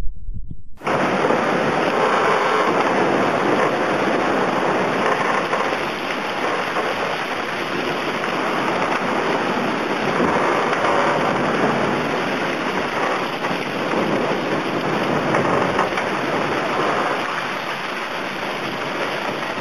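Rushing water and spray sweeping over the deck of an IMOCA 60 ocean-racing yacht driving fast through rough seas: a steady, dense hiss that starts abruptly about a second in.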